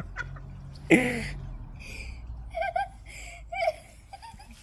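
A person's voice making short wordless vocal sounds: one loud exclamation about a second in, then a few softer murmurs, over a low steady rumble.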